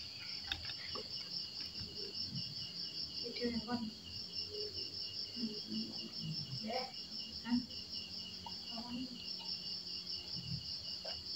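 Insects chirping in a steady, high trill of fast, even pulses that runs on without a break.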